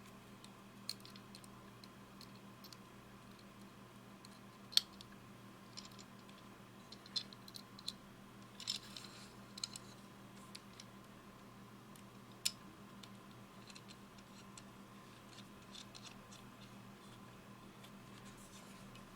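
Scattered light clicks and taps, with a short scrape about nine seconds in, from a small aluminum mini hacksaw and its blade being handled; a faint steady hum lies underneath.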